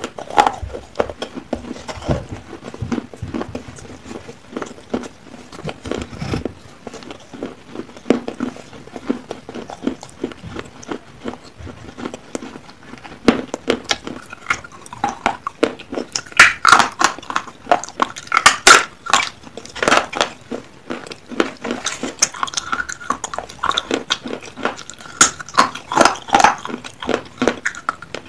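Pieces of unglazed clay pot being bitten and chewed: a steady run of sharp, crackly crunches. They come thicker and louder in two spells, about midway and near the end.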